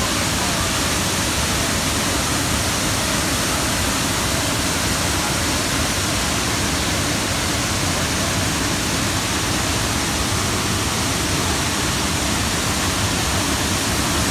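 A waterfall pouring into its plunge pool: a steady rush of falling water, an even noise spread across low and high pitches that holds constant throughout.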